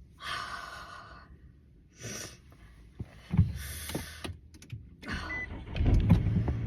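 Rustling and handling noises with a few scattered knocks, then a low steady rumble that sets in near the end.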